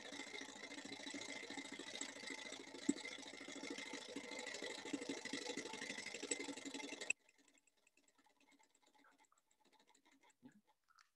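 Small gamma-type Stirling engine model running, a faint rattling tick from its pistons, linkage and flywheel as it slows down with its heat source taken away. The sound cuts off abruptly about seven seconds in.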